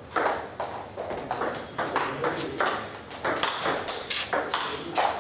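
Celluloid-type table tennis ball clicking sharply off rubber bats and the tabletop, a string of quick, irregular hits.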